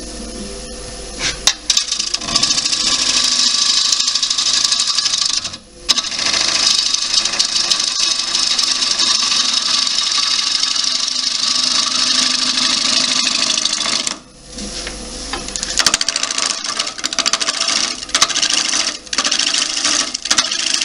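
A wood lathe spinning a green (wet) cherry-wood bowl blank while a turning gouge cuts its outside, giving a loud, continuous shearing and scraping noise. The cut stops briefly about five and a half seconds in and again about fourteen seconds in, then comes in shorter, broken passes near the end.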